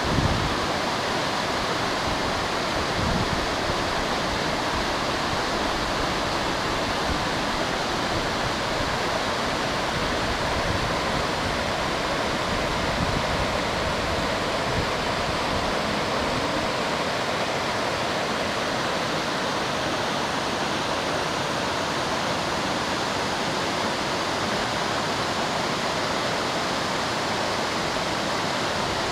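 Ryuzu Falls, a waterfall cascading down rock, rushing with a steady, unchanging wash of noise.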